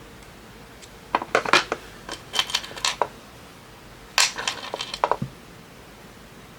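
Small metal charm findings clinking and clicking against each other as they are handled: a run of light taps, then a second shorter run a second later.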